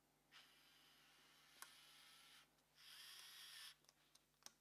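Near silence, with faint scratching of screws being tightened by hand into the drone frame's metal inserts in two short spells, and a couple of light clicks.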